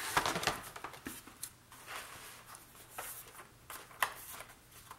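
Stiff cardstock panels of a scrapbook explosion box being lifted, folded over and set down on a cutting mat: paper rustling and a few light taps and clicks, louder at first, with a sharp click about four seconds in.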